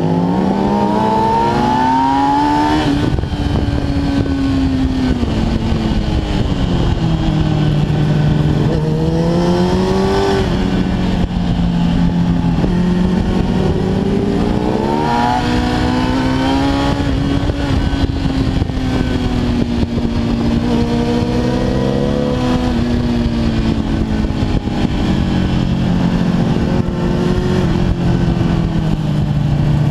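Kawasaki ZX-10R's inline-four engine heard from the rider's seat, revving up hard through the gears with quick drops in pitch at each upshift, then falling away off the throttle before pulling again, several times over. Wind rush runs under it throughout.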